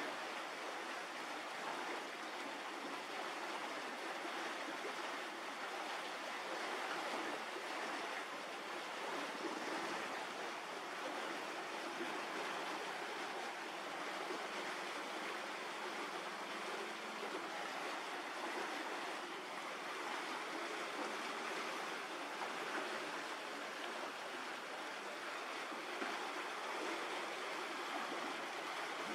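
A steady, even rushing noise with no separate events or changes.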